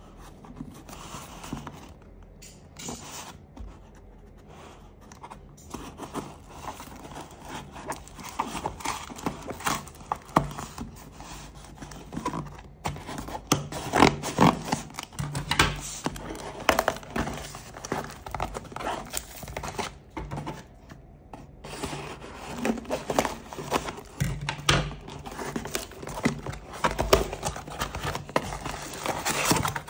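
Scissors cutting through packing tape and cardboard on a shipping box, with scraping, crackling and tearing, loudest about halfway through. Near the end the cardboard is torn open by hand.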